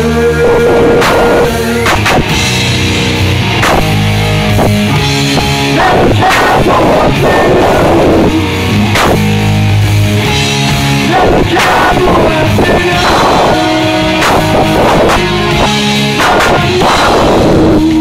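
A live heavy metal band playing loudly: electric guitars over a drum kit, with repeated drum and cymbal hits.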